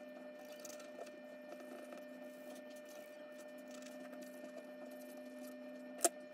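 Charcoal pencil scratching over drawing paper in faint irregular strokes, under a steady electrical hum. A single sharp click about six seconds in.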